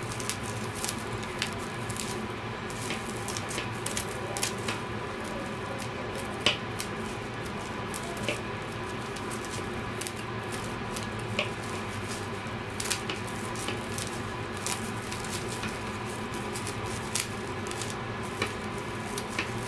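Scissors repeatedly snipping through bundled acrylic yarn to trim a pompom into shape: a run of short, sharp snips at an uneven pace.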